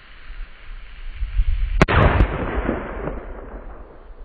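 An explosion across open ground: one sharp blast about two seconds in, with two quicker cracks right after and a rumbling echo that dies away over about a second.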